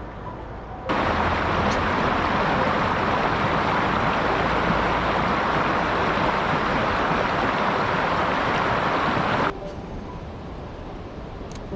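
A mountain stream rushing loudly over rocks, a steady rush of water that cuts in suddenly about a second in and stops just as suddenly near the end.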